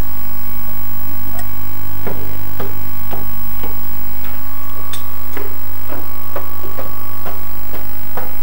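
Footsteps on a wooden floor, about two light knocks a second from about two seconds in, over a steady electrical hum.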